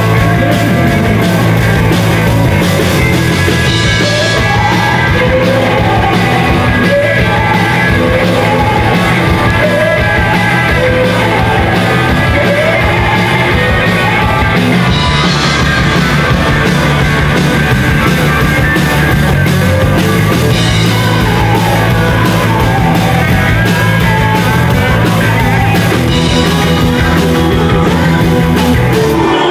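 Live rock band playing loud: electric guitar, drums and bass, with a woman singing lead.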